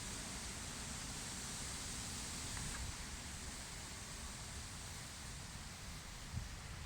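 Strong wind blowing through grass: a steady, fairly faint rustling hiss, with a fluctuating low rumble of wind on the microphone beneath it.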